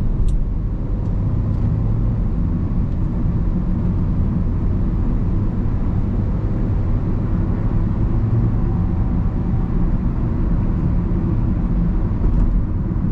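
Road and engine noise of a 2014 Honda Civic's 1.8-litre i-VTEC four-cylinder while driving, heard from inside the cabin: a steady low rumble, with a couple of faint clicks.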